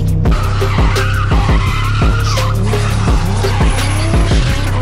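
A car drifting, its tyres squealing with the engine revving up and down, over music with a heavy bass and a steady beat.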